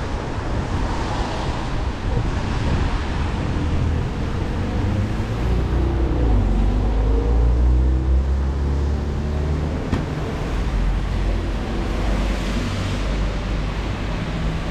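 Street traffic on a wet road in the rain: a steady hiss of tyres and rain, with a vehicle's engine passing, loudest between about six and nine seconds in.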